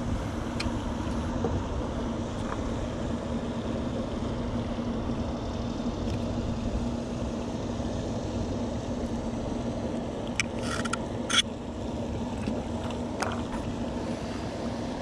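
A steady low mechanical hum holding one constant tone, like a motor running, with a few sharp clicks a little past the middle.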